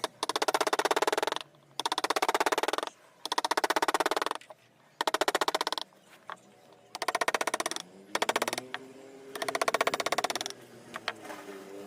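A wood carving tool working wood in bursts of very rapid tapping, each about a second long, with short pauses between them.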